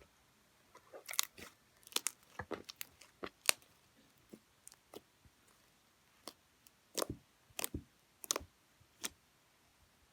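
Slime being played with: irregular sharp pops and crackles, clustered from about one to four seconds in and again from about seven to nine seconds.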